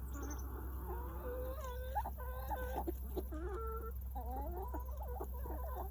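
A flock of backyard chickens clucking with many short, overlapping calls as they feed on vegetable and fruit scraps.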